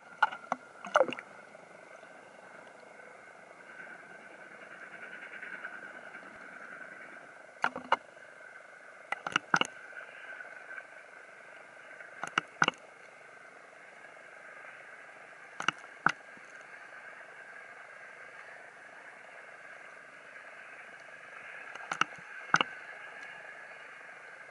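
Muffled sound from a camera in a waterproof housing bobbing at the sea surface: a steady hiss, with sharp knocks on the housing, mostly in pairs, every few seconds.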